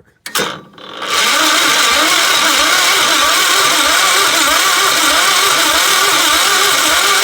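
Gravely 430 tractor's electric starter cranking the engine: a click, then about a second in a loud, steady whir that rises and falls evenly with each compression stroke, the engine not firing. There is no spark, which the owner puts down to the ignition points needing cleaning.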